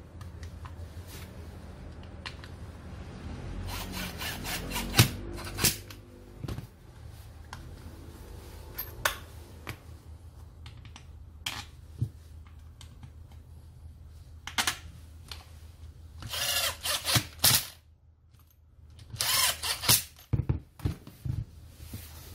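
Hands handling a 4-inch angle grinder: scattered clicks and knocks, then two short bursts of rattling, scraping noise near the end, over a steady low hum.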